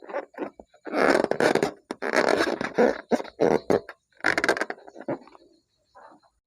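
Slime being squished and mixed by hand: sticky, wet squelching and crackling in irregular bursts, the longest about a second in, two to three seconds in, and near four and a half seconds in.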